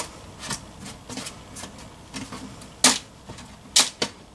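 Irregular light taps and clicks as oiled potato slices are set down one by one on a parchment-lined metal sheet pan, with two sharper clicks about three and four seconds in.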